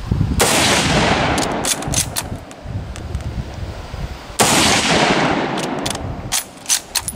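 Two loud gunshots about four seconds apart, each trailing off in a long rolling echo, with several shorter, sharper shots from other guns on the range in between and after.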